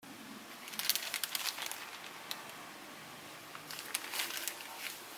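Clear plastic zip-lock bag crinkling as it is handled, in two bouts of crackling, about a second in and again near the end.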